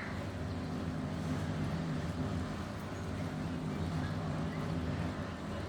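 A steady low mechanical hum, like a motor running, unchanging throughout.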